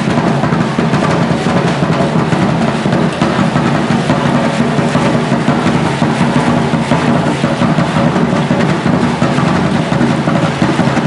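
Shell ankle rattles of a troupe of Concheros dancers shaking with their stamping steps, a dense, loud, continuous rattling din.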